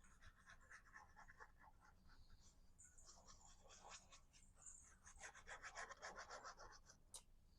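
Faint scratching and rubbing of cardstock pieces being handled and pressed down while layering a paper card, in quick irregular strokes that grow busier in the second half, with one sharp click near the end.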